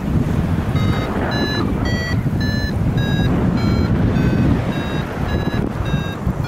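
Wind rushing over the microphone, with a paragliding variometer beeping about twice a second from about a second in, its pitch shifting from beep to beep. The beeping is the variometer's climb tone, the sign that the glider is in rising air.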